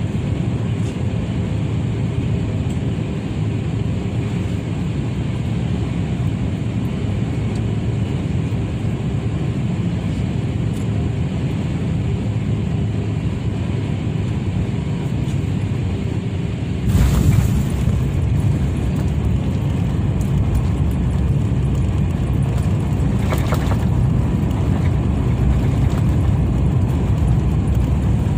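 Airliner cabin noise during landing: a steady low rumble that jumps louder with a sudden jolt about 17 seconds in, at touchdown, and stays louder through the rollout.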